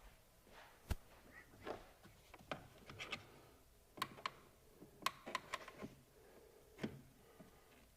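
Scattered faint clicks and taps, about a dozen irregular ones, of plastic trim clips, fasteners and tools being handled during work in a car's engine bay.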